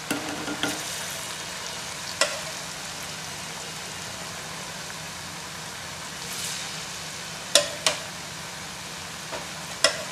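Rice-flour chakri deep-frying in hot oil in a kadai, a steady sizzle. A metal spatula clicks sharply against the pan a few times, twice in quick succession near the end.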